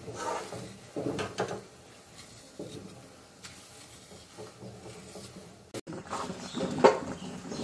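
A hand vegetable peeler scraping the skin off a potato in short strokes, then a metal ladle stirring thick curry in a kadai.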